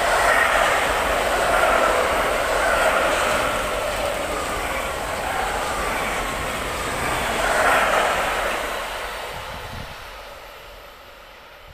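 Freight train of semi-trailers carried on rail wagons passing at speed: a steady rolling rumble of wheels on rail that fades away over the last few seconds as the end of the train goes by.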